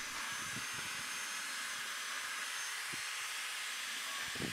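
Cordless drill running steadily as it bores screw holes in wooden sleepers: an even whirring hiss with a thin, high whine.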